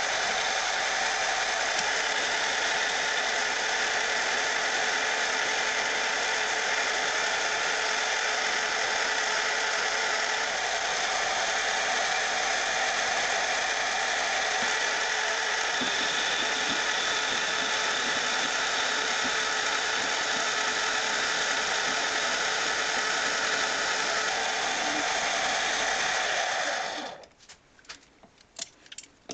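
Metal lathe running steadily, taking a turning cut along 1-inch aluminum round stock, its motor and gearing giving a steady whine. The lathe stops about 27 seconds in, followed by a few light clicks.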